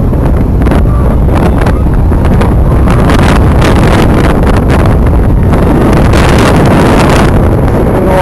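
Strong wind buffeting the microphone over a motorboat's engine running at speed, loud and steady.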